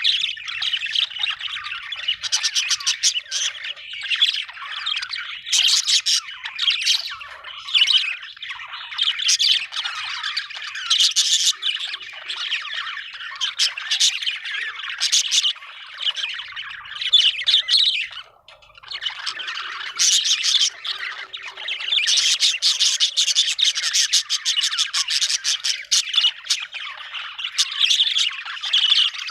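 Budgerigar chirping and warbling in fast, near-continuous chatter, the contented sound of a happy budgie, with one brief pause about two-thirds of the way through.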